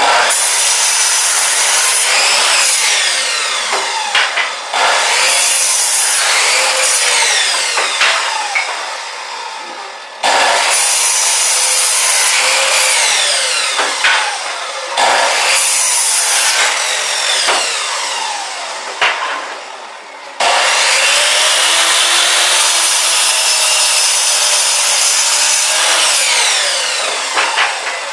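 Chop saw cutting through wood about five times in a row. Each cut starts suddenly with a loud whine and grinding that slowly fades as the blade's pitch drops.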